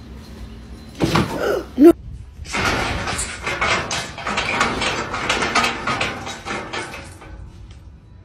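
A brief loud cry with a rising pitch about a second in. It is followed by several seconds of rapid clattering and clanking, like a metal gate being rattled.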